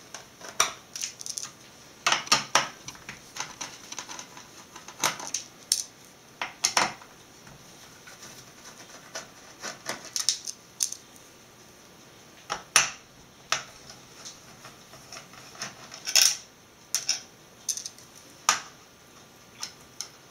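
Irregular metallic clicks and clinks, some in quick clusters, of a screwdriver working the small screws out of the metal mounting bracket inside a Dell Inspiron 2320 all-in-one computer.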